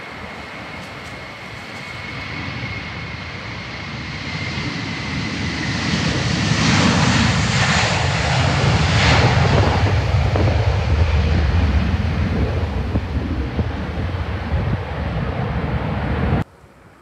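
Twin-engine jet airliner's engines running as it passes along the runway. A high whine in the first few seconds fades under a swelling roar that peaks as the plane goes by. A deep rumble lingers behind it, then the sound cuts off abruptly near the end.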